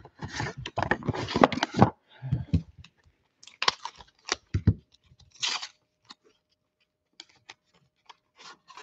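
A cardboard trading-card blaster box and its foil card packs being opened by hand, with tearing and crinkling. It is dense for the first two seconds, then thins to scattered short crinkles and clicks.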